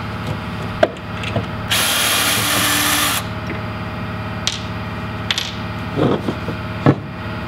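Cordless drill-driver spinning out a stainless steel sponson screw in one steady run of about a second and a half, followed by a few sharp clicks.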